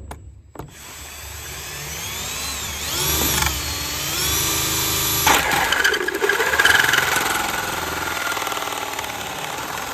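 Electric drill driving a hole saw through a riding mower's plastic hood cover. The motor whine starts about half a second in, and its pitch slides up and down as the saw bites into the plastic.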